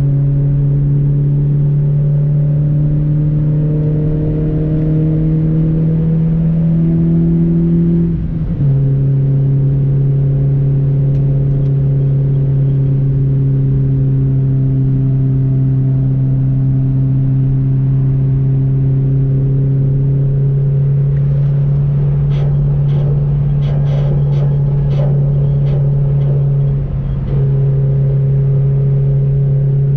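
Honda CR-Z's 1.5-litre four-cylinder engine pulling hard while driving. Its pitch climbs slowly and then drops sharply at an upshift about eight seconds in, holds steady under load, and dips briefly near the end. A run of sharp ticks comes about two-thirds of the way through.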